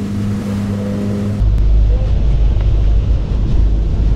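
Background music with a steady low drone, then about a second and a half in an abrupt change to an outrigger boat's engine running, under a heavy low rumble of wind on the microphone.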